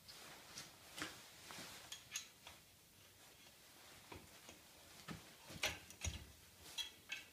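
Faint, scattered clicks and light metal taps of the tractor's clutch friction plates and pressure plate being handled and shifted into position, with a few brief ringing clinks near the end.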